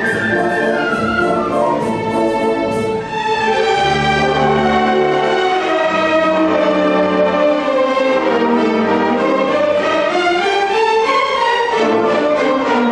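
Youth symphony orchestra playing live, the violins carrying a melody that falls and then climbs again. Low sustained notes come in about four seconds in.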